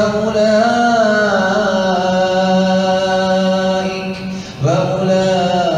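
A man chanting Quran recitation in a melodic tajweed style, holding one long note with slow turns in pitch for about four seconds, then a short break for breath and the start of the next phrase.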